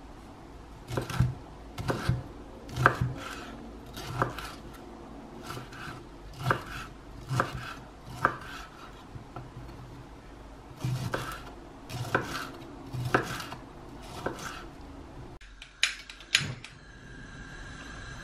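Chef's knife chopping broccoli florets on a wooden cutting board: sharp knocks of the blade on the board, mostly about one a second, in irregular runs. They stop a few seconds before the end, followed by a couple of lighter taps.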